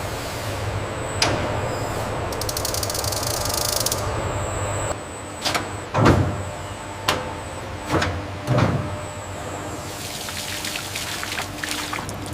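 Steady machinery hum with a rapid rattling buzz for a couple of seconds, then about five heavy thuds about halfway through, each sinking in pitch, and a crackling near the end.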